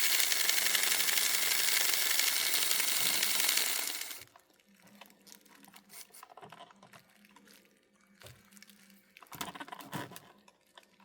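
Rivarossi Casey Jones 4-6-0 model locomotive running on its track, its small electric motor and gearing making a steady buzz and hum. The noise cuts off about four seconds in, leaving only faint ticks and a few small clicks near the end.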